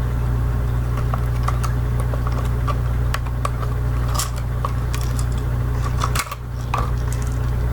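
Scattered light clicks and taps from a jerkbait fishing lure and its packaging being handled, over a steady low hum that dips briefly a little after six seconds.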